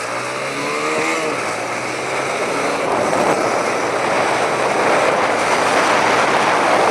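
TVS Apache RTR 180 motorcycle's single-cylinder engine revving up as the bike pulls away, with wind rush building on the microphone as speed rises.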